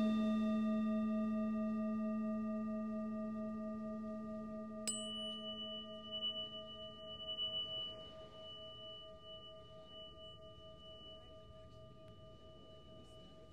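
Struck tuning forks and a Himalayan singing bowl ringing out, several steady pure tones fading slowly, one of them wavering. About five seconds in, a click as another is struck adds a bright high tone that also rings and fades.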